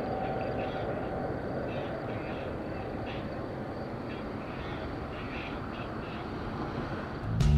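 Steady distant rumble of the Airbus A320neo's CFM LEAP-1A jet engines as the aircraft climbs away, slowly fading. Music with guitar cuts in loudly near the end.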